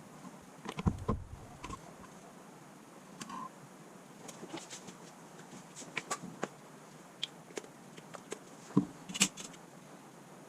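Scattered light clicks and taps of a smartphone and small repair tools being handled on a work surface. A few louder knocks come about a second in and near the end.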